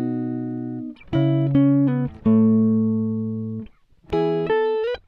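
Intro music: plucked guitar chords, each ringing out for a second or so before the next, with short sliding notes between some of them.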